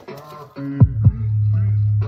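Hip hop track's deep 808 bass played through a DIY 6.5-inch, 50-watt subwoofer as a bass test. The music drops nearly out for about half a second, then comes back with a couple of kick hits and a long held low bass note.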